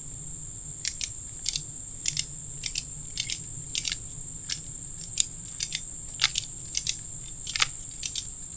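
Ratchet strap being cranked tight around a tree trunk to secure a ladder deer stand: sharp metallic clicks, mostly in pairs, about one pair every half second. A steady high insect drone runs underneath.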